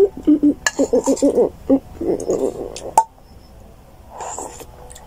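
Indistinct talking, then a sharp click about three seconds in and a brief slurp as a child drinks the last of her champorado (chocolate rice porridge) from a plastic bowl.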